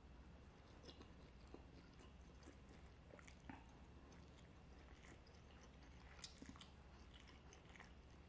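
Faint chewing and slurping of a mouthful of fried instant noodles: a string of small wet clicks and smacks.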